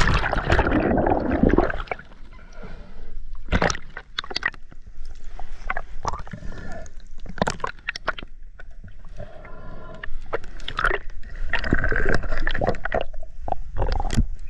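Splash of a diver dropping into the water in the first two seconds, then muffled underwater gurgling and bubbling with scattered clicks and knocks as he swims.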